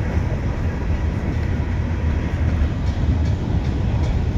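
Freight cars of a Norfolk Southern mixed freight train rolling past, a steady low rumble of steel wheels on rail, with a few light clicks in the second half.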